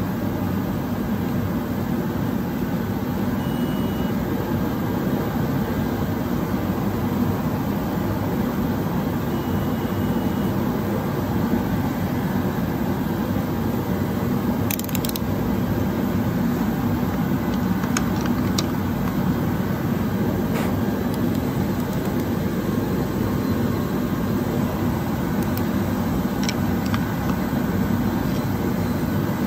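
A steady, low mechanical drone, like a running machine or blower, with a few faint clicks in the middle and near the end.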